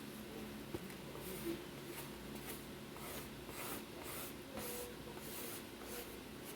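Close-up chewing of a crunchy snack: a run of short crunches, about two a second.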